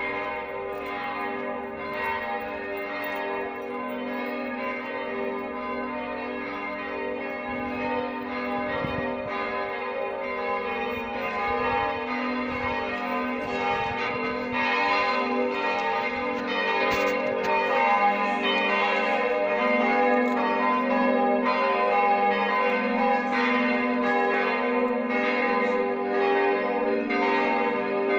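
Church bells pealing, several bells ringing together without a pause, louder in the second half.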